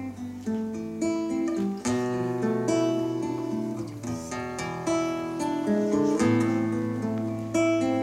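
Nylon-string acoustic guitar playing a picked instrumental introduction to a song, bass notes and ringing chords changing every couple of seconds.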